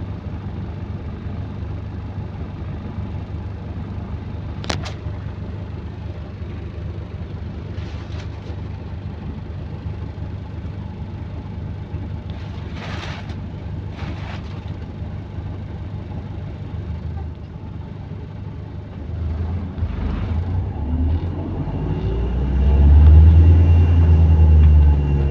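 Bus engine running with a low steady rumble, with a sharp click and a few short hisses, then pulling away about three-quarters of the way through, getting louder with a rising and falling engine note and a thin whine; the bus has an exhaust leak.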